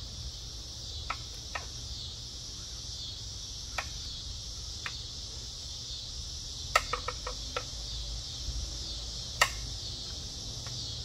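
Scattered sharp metal clicks as a thread-cutting tap and its T-handle wrench are handled and taken off an outboard tiller handle. A quick run of clicks comes about two-thirds of the way in, and one louder click near the end. A steady high chorus of insects runs underneath.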